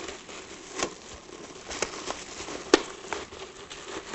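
Thin plastic bag crinkling and crackling in the hands while a rubber band is worked around it over the end of a plastic bottle: scattered small crackles, with one sharper click nearly three seconds in.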